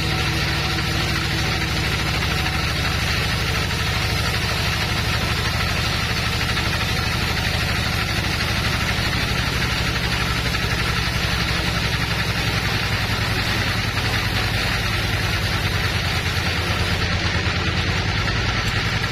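Band sawmill machinery running steadily: a low engine drone with an even hiss over it, unchanging throughout.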